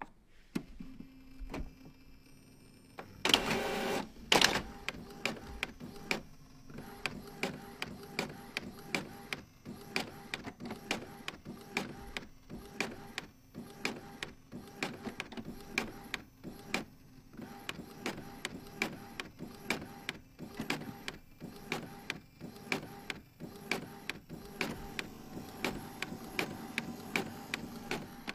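Epson all-in-one inkjet printer making a copy: a click as the start button is pressed, then a loud burst of mechanism noise about three seconds in, followed by a long steady run of motor whirring and rhythmic clicking, about two clicks a second, as it scans and prints.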